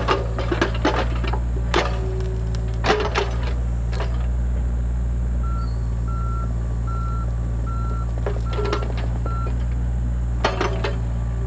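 Mini excavator engine running steadily while wood and roots crack and snap under the digging in the first few seconds. In the middle a travel alarm beeps six times, evenly spaced, and more cracks come near the end.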